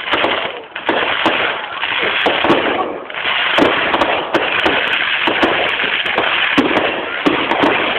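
Fireworks display going off: a rapid, irregular string of sharp bangs and crackles over a continuous hiss.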